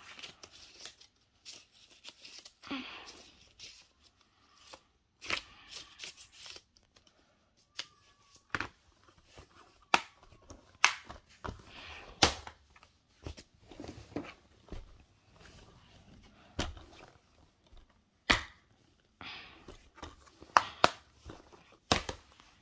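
Handling a plastic Blu-ray case: a paper insert rustling, and scattered sharp clicks and snaps of the plastic case being shut and moved about. The clicks come more often and louder in the second half.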